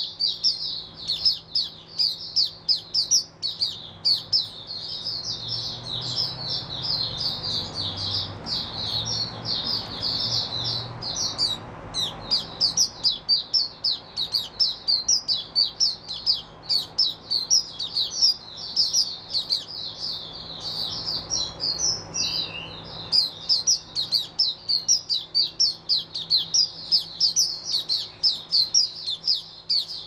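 Caged white-eye singing a long, unbroken run of rapid high-pitched twittering chirps, many a second.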